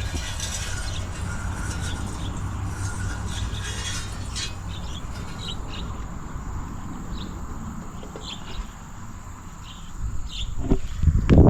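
Birds chirping in short calls over a steady high-pitched insect drone, with a low steady rumble underneath. A few louder low knocks come near the end.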